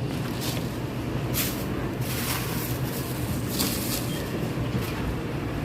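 Steady low rumble and hum of a busy market store, with several brief scratchy rustles at irregular moments.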